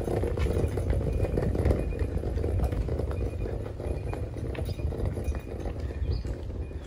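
Wheels of a large suitcase rolling over rough asphalt: a steady low rumble with many small clicks and knocks.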